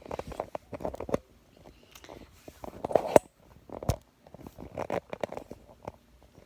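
Irregular rustling, crinkling and small clicks of toys being handled.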